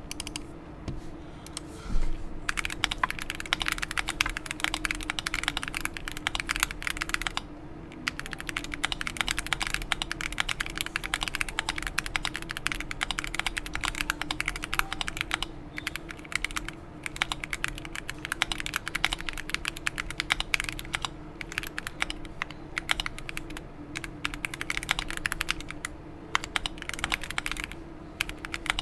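Typing on a Bubble 75 mechanical keyboard with stock Gateron Ink Yellow linear switches, PBT keycaps and EVA foam: a few scattered keystrokes at first, then fast continuous key clacks with one short pause about seven seconds in.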